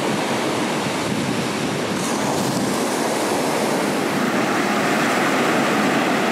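Ocean surf breaking and washing on a beach, a steady rushing noise, with some wind on the microphone.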